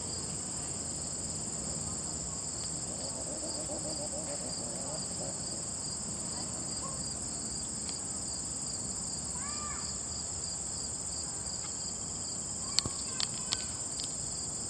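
Steady chorus of crickets and other singing insects: a continuous, high-pitched, pulsing trill. A short chirp sounds about ten seconds in, and a few sharp clicks come near the end.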